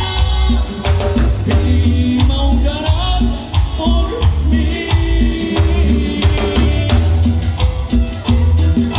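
Latin dance music in an instrumental passage: a heavy pulsing bass, a steady beat with shaken percussion, and a melody line over it.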